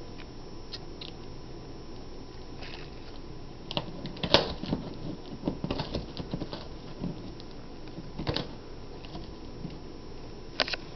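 A cat biting and chewing the edge of a cardboard box, the cardboard crackling and tearing in irregular clicks, busiest from about four to seven seconds in.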